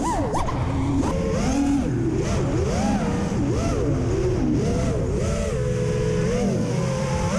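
TBS Source One FPV quadcopter's brushless motors and DAL T5040 propellers whining in flight. The pitch rises and falls continually as the throttle is worked through flips and turns.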